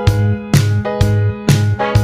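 Upbeat background music with a steady beat, about two beats a second, over a bass line and held chords.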